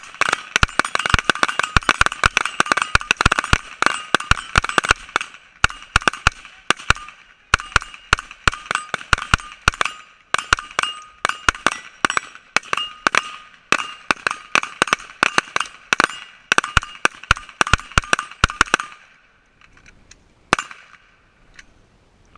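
A rapid string of rifle shots, about three a second, with a steady ringing tone under them. The firing stops about 19 seconds in, and one more shot follows a second and a half later.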